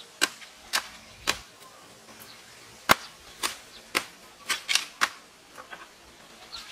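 Machete chopping at dry bamboo stems: about ten sharp, separate strikes, roughly half a second apart, with a few quick pairs near the end and the loudest a little under three seconds in.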